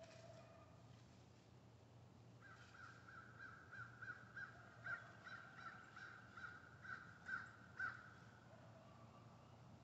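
An animal calling in a quick run of about fifteen short, faint, crow-like notes, roughly three a second, starting a couple of seconds in and stopping about two seconds before the end, the last few the loudest.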